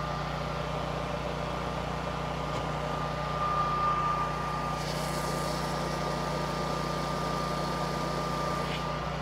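Generac natural-gas home standby generator engine running steadily at its fixed high speed with a thin steady whine, unloaded after the transfer switch has returned the house to utility power, before it shuts down.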